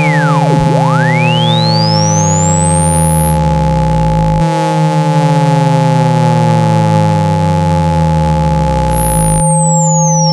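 Synthesized speaker-cleaning tones for pushing water out of a phone speaker, played loud. A steady low hum and two steady mid-pitched tones hold throughout. A pure tone sweeps down to a very low pitch about half a second in, rises to a very high pitch over the next four seconds, and starts falling again near the end, while a set of falling glides starts over about every five seconds.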